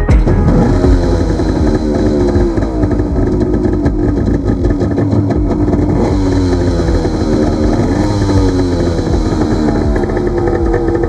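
Yamaha Wave Raider 1100 jet ski's three-cylinder two-stroke engine running under way, its pitch dropping and climbing again several times as the throttle is eased and opened.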